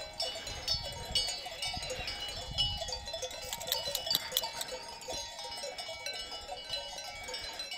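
Many small bells on a flock of sheep clinking and ringing irregularly, several at once.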